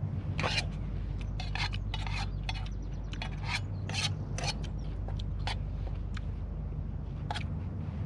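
Thin metal utensil scraping and clicking against a small titanium camp pan as cooked greens are picked from it: a string of short, irregular clicks and scrapes, over a steady low rumble.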